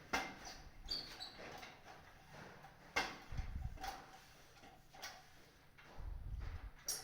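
Handling noise: scattered clicks and knocks, the sharpest just after the start, about three seconds in and near the end, with a short high squeak about a second in and low rumbles between.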